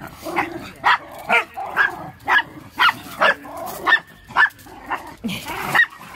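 A dog barking repeatedly, short sharp barks about two a second.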